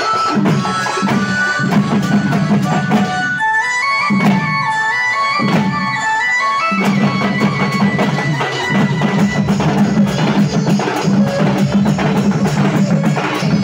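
Street band of barrel drums and large brass hand cymbals playing a fast, driving rhythm. For a few seconds around the middle the drums mostly drop out while a high melody steps up and down in short notes, then the drums come back in.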